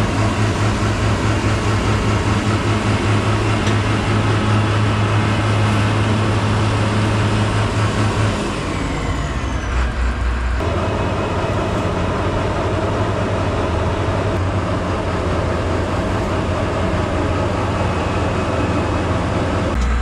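Diesel engines of a combine harvester and tractor running steadily, with a strong low hum. The engine note drops away about eight seconds in, and the sound changes abruptly about ten and a half seconds in.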